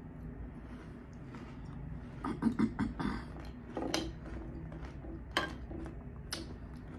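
Close-miked chewing of a mouthful of cereal and milk, with a metal spoon clinking sharply against a glass bowl a few times as it stirs and scoops the cereal.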